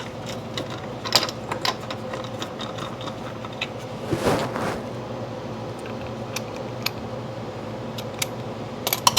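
Scattered metallic clicks and clinks of a 19 mm socket wrench tightening a motorcycle's rear wheel bolts, over a steady low hum, with a brief louder swish about four seconds in.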